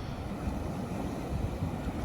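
Wind buffeting the microphone, with an unbroken rumbling roar underneath.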